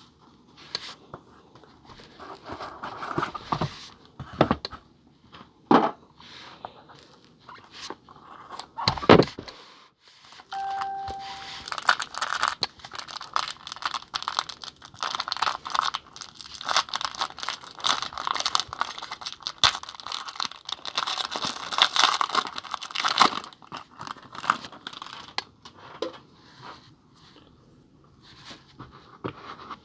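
A sealed box of 2018 Panini Prime Racing trading cards being opened by hand: wrapping tearing and crinkling, with knocks and handling noises throughout. A short beep sounds about ten seconds in.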